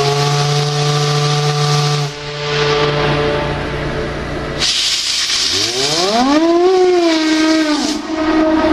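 A whistle sounding over steady hiss. A low steady tone runs for about two seconds, then there is hiss alone. A second whistle sweeps upward in pitch around the middle, holds, and falls away near the end.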